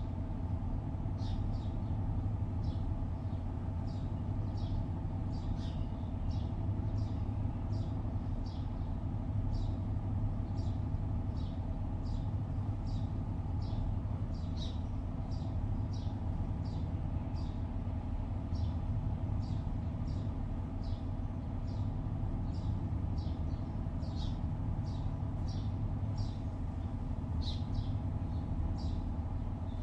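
Steady hum of distant city traffic, with birds chirping over it: short high chirps repeating irregularly, about one or two a second.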